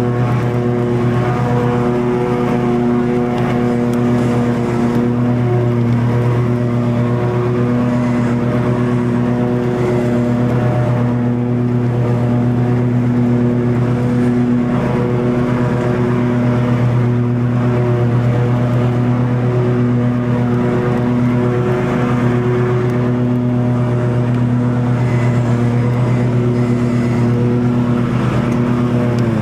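Toro TimeCutter 50-inch zero-turn riding mower engine running steadily at working speed while mowing long grass.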